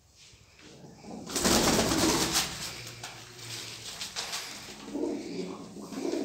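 Domestic fancy pigeons cooing in a small loft room, with a loud rustling burst about a second and a half in.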